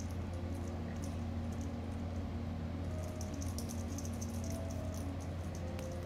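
Light, quick clicks and rattles from a feather-and-ball wand cat toy as a kitten bats and grabs at it, busiest a few seconds in, over a steady low hum.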